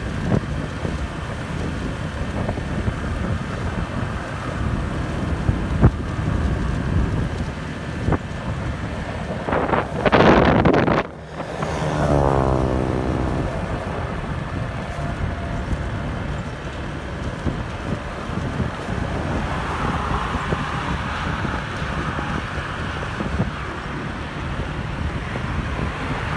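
Car driving along a road: steady road rumble with wind on the microphone. About ten seconds in there is a loud rush lasting about a second, followed by a tone that falls in pitch over a couple of seconds.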